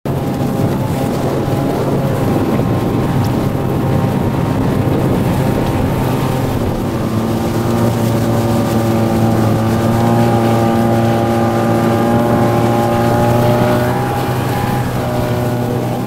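Outboard motor running steadily, driving an inflatable boat at speed, with wind buffeting the microphone.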